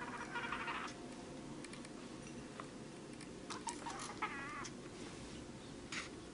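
Kitten mewing: a short high mew just after the start and another wavering mew about four seconds in, with a few light clicks between.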